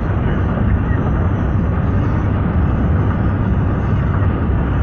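Steady low rumble of a car driving at speed, heard from inside the cabin: road and wind noise.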